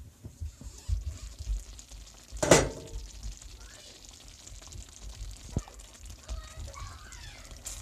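Glass pot lid lifted off a skillet and set down with a loud clank about two and a half seconds in. Then the Hamburger Helper simmers and sizzles in the pan while a spoon stirs it, with a small click a few seconds later.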